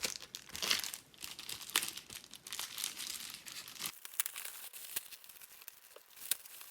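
A mailing package being opened by hand: irregular crinkling and crackling of the packaging, with bits of tearing.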